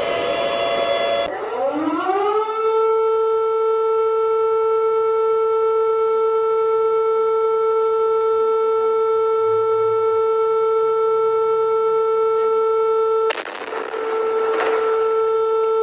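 Civil defense siren winding up, its pitch rising for about a second, then holding one steady wail. About two seconds from the end a harsh noise breaks in over it.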